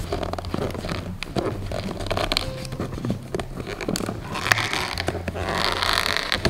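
Packaging being handled and opened: scraping, crinkling and clicks, with a longer ripping sound, like tape or cardboard tearing, about five and a half seconds in.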